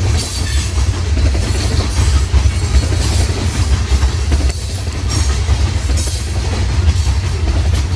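Loaded coal cars of a freight train rolling past, a steady heavy rumble with faint, irregular clicking of wheels over rail joints.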